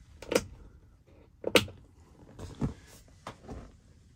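About four sharp clicks, roughly a second apart, the loudest about a second and a half in: a hand pressing the push-button switch on an overhead LED light panel.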